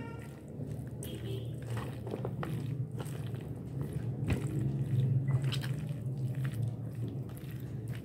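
Silicone spatula stirring a creamy macaroni and vegetable salad in a plastic tub: wet squishing and crunching of shredded cabbage and pasta, with occasional light knocks. A low steady hum runs underneath.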